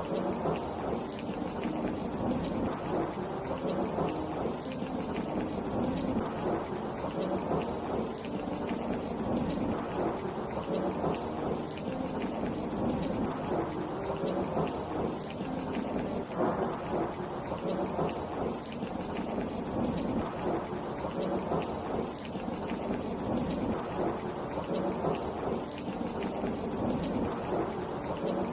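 Steady heavy rain pattering down without a break, with a low rumble of thunder beneath it.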